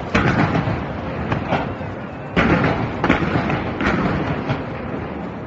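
Fireworks going off in volleys: two loud onsets of bangs about two seconds apart, each followed by a run of scattered bangs and crackle that dies down toward the end.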